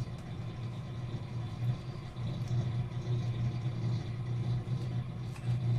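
A steady low mechanical hum, with a few faint light scrapes and clicks of a knife scoring cooling peanut brittle on a steel tray.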